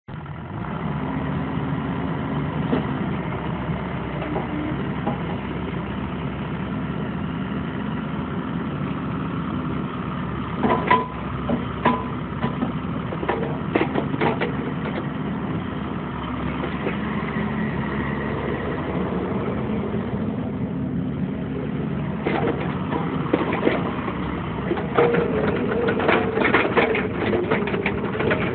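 Bobcat E55 midi excavator's Doosan diesel engine running steadily while the boom, arm and bucket are worked and the machine swings, with clusters of sharp knocks in the middle and near the end.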